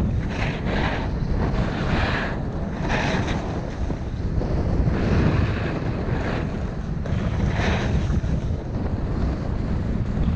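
Wind buffeting a head-mounted camera's microphone while riding a snowboard fast downhill, with the board's edge scraping and hissing over packed, chopped-up snow several times.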